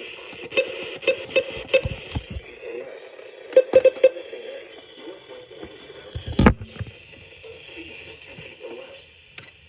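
Weather radio's small speaker playing a weak weather station broadcast, a thin voice under static hiss. Short beeps come in quick runs about half a second in and around four seconds in, and there is a single loud thump about six and a half seconds in.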